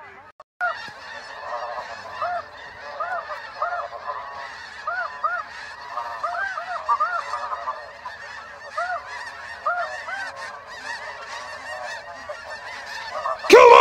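A large flock of snow geese calling overhead, a dense chorus of many short overlapping honks, with one much louder, closer honk near the end.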